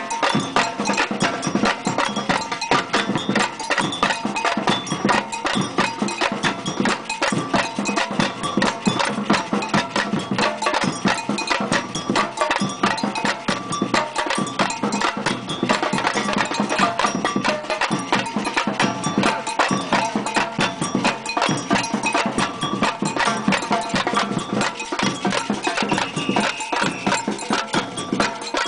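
Batucada samba percussion ensemble playing a dense, continuous samba rhythm of drums and other hand percussion.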